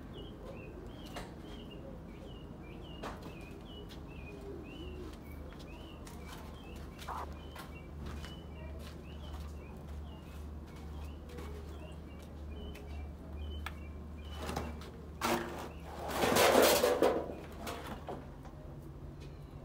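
Small birds chirping over and over in quick short notes, over a steady low hum. Near the end comes a loud rustling noise lasting about a second, the loudest sound here.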